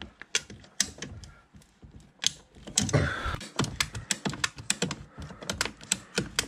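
Ratcheting plastic-pipe cutter clicking again and again as its handle is pumped, the blade working through a black plastic tub drain pipe at a glued joint, with a rougher crunch about three seconds in.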